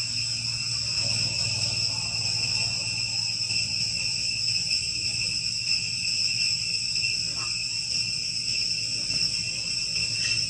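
Insects in the forest singing in a steady, unbroken chorus, held at a few high pitches.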